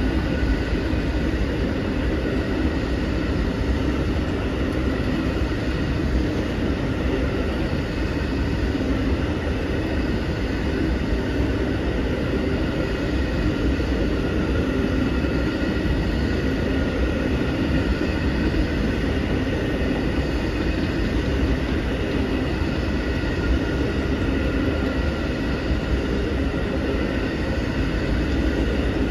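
Amtrak Auto Train's enclosed auto-carrier cars rolling past: a steady, continuous rumble of wheels on the rails, with a faint steady high ringing over it.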